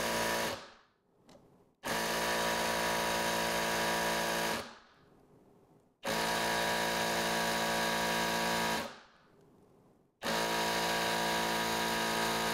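Hilti cordless impact wrench running in reverse at its high setting, hammering continuously against the hydraulic torque tester's locked drive. It runs in timed bursts with short rests. One burst ends about half a second in, then three more follow, each about three seconds long and winding down as the trigger is released.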